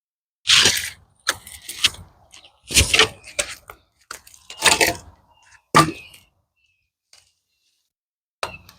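Dry pecan branches cracking and crunching as they are chopped and broken up, about six irregular sharp hits with short crunching in between.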